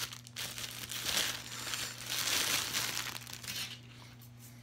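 Clear plastic packaging bag crinkling as it is handled and opened, in irregular bursts that die down about three and a half seconds in.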